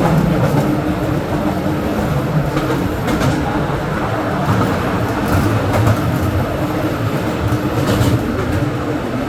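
Mine tour train cars rolling along the rails: a steady rumble with a few brief clacks from the wheels.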